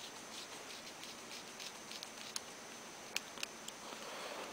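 Faint scratching and ticking of a small screwdriver turning tiny screws into plastic RC helicopter tail parts, with a few sharper clicks between about two and three and a half seconds in.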